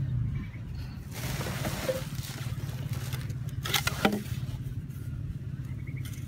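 A steady low motor drone, with a rustle a little over a second in and a short cluster of sharp knocks and scrapes about four seconds in as a plastic PVC pipe is handled.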